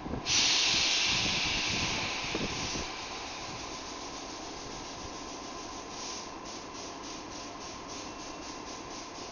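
Stationary London Underground train's pneumatic air system: a sudden loud release of air hiss starts about a quarter second in and fades over two or three seconds. Over a steady hum, a rapid run of short air puffs, about three or four a second, begins about six seconds in.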